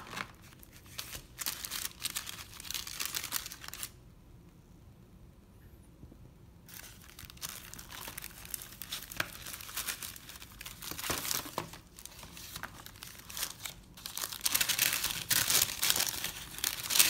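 Paper sandwich wrapper crinkling as a shawarma is unwrapped by hand, in irregular handling noises. They go quiet for a few seconds early on and are loudest near the end.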